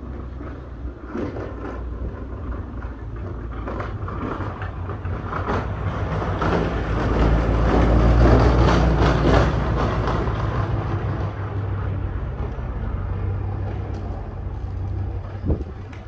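Blizzard wind gusting hard on the microphone, building to its strongest about halfway through and easing off again, over a steady low hum.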